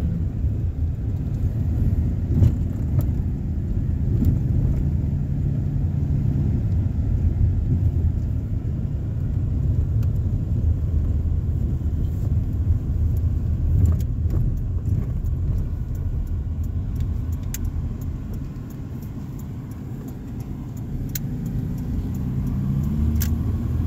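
Engine and road noise inside the cabin of a moving car, a steady low rumble. It eases off for a few seconds past the middle and picks up again near the end, with a few faint clicks.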